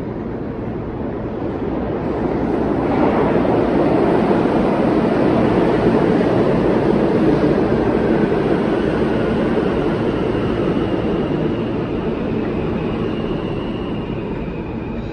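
A large vehicle passing: a loud rumble that builds over the first few seconds, peaks midway and slowly fades, with a faint high whine near the end.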